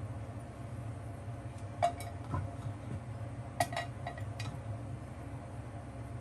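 Light clinks of cookware and utensils: several short separate taps, a few with a brief metallic ring, over a steady low hum.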